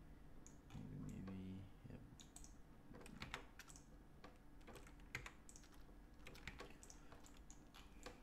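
Faint, irregular clicks of a computer keyboard and mouse as keys and buttons are pressed one at a time.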